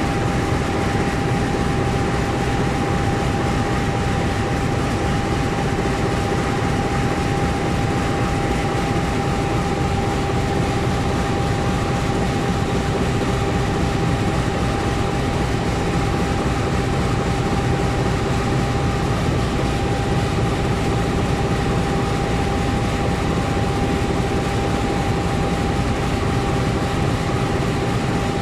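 Diesel locomotive engine idling: a steady, unchanging low rumble with a constant whine on top.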